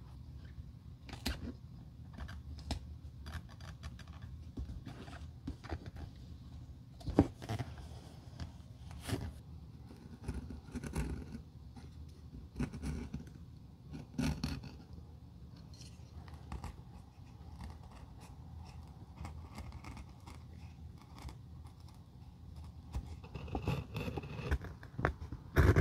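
A flat knife blade cutting and scraping away excess heel-covering material along the top edge of a shoe heel: scattered short cutting strokes and clicks, growing busier near the end, with hands rubbing the covering into place.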